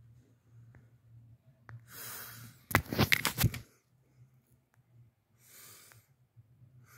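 A person's breath, then a loud sputtering burst of rapid crackling pulses lasting under a second, about three seconds in, followed by another breath, over a low steady hum.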